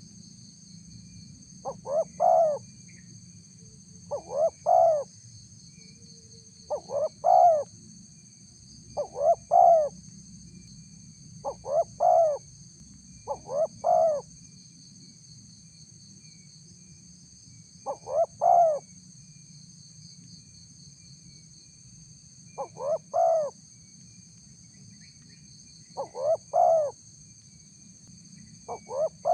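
Spotted dove (tekukur) cooing: a short phrase of two or three coos repeated about every two to three seconds, ten times, with longer pauses in the second half. It is a lure call, a female's call to a male, used to draw wild doves to answer.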